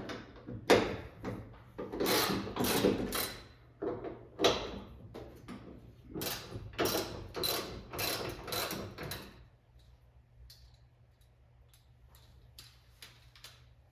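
A hand ratchet working the trunk-lid hinge bolts loose: a series of about a dozen short ratcheting strokes, stopping about nine and a half seconds in, followed by a few faint clicks.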